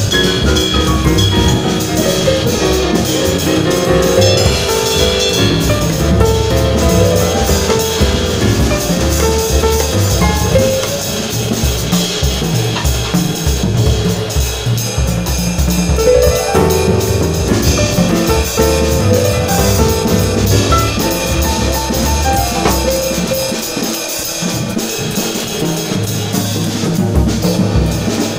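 A jazz piano trio recording, with piano and bass, playing under a drum kit that is played along with it. Ride cymbal and drum strokes run through the whole passage.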